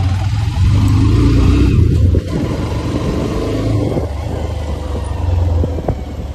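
Motorcycle engine running at low road speed, its pulsing note dropping in level about two seconds in.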